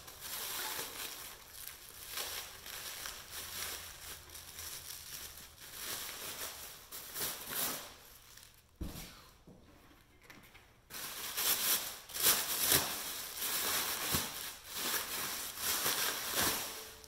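Plastic packaging wrap with foam padding crinkling and rustling as it is pulled and worked off a bicycle wheel's hub, with a quieter lull of a couple of seconds about halfway through.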